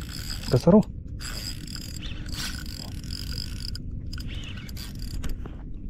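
Spinning reel (Daido Spectre PS 4000) being worked during the fight with a freshly hooked fish: a steady gear-and-line whirr.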